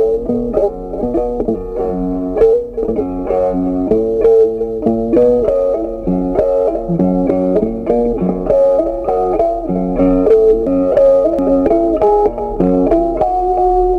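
Background instrumental music: a guitar melody of quick plucked notes over a bass line.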